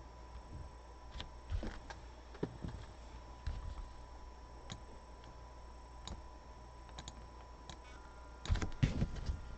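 Scattered clicks and taps of a computer keyboard and mouse as camera settings are adjusted, ending in a cluster of louder knocks near the end. A faint steady tone runs underneath.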